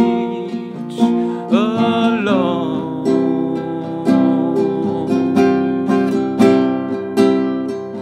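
Nylon-string classical guitar strummed in a steady rhythm. A man's voice sings one drawn-out word about a second in, then the guitar carries on alone.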